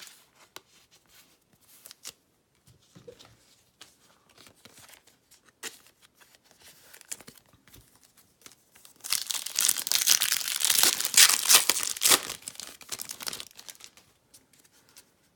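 Faint scattered clicks of cards being handled, then, about nine seconds in, a trading-card pack's foil wrapper torn open and crinkled for about four seconds.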